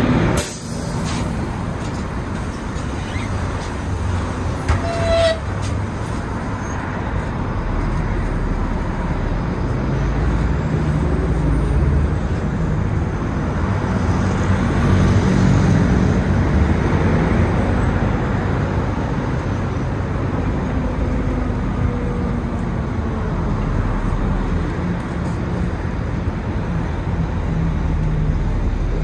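Steady engine and road rumble of a city bus in motion, heard from inside, with surrounding street traffic. A loud rush comes right at the start as another bus passes close alongside, and a short high squeak comes about five seconds in.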